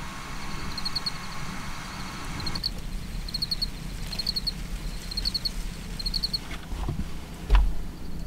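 Insects chirping outdoors in short rapid trills that repeat about every two-thirds of a second. A faint steady hum drops away a few seconds in, and a dull thump comes near the end.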